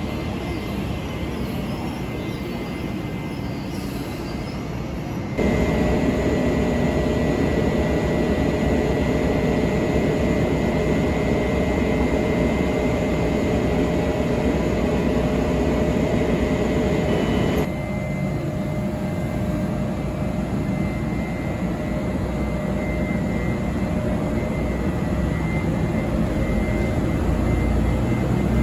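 Taiwan Railway electric trains at a station platform, in short clips joined by abrupt cuts. A standing electric-hauled Chu-kuang Express train hums steadily with a high electrical whine. Then its E200-series electric locomotive runs, growing louder near the end.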